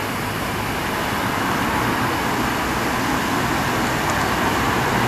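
Steady road traffic noise of cars passing on a busy street.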